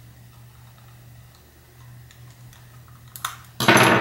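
Faint small clicks of a screwdriver working the battery-cover screw on a plastic TrackMaster toy engine, over a steady low hum. Near the end comes a louder clatter as the plastic toy is handled and the metal screwdriver is set down on a stone countertop.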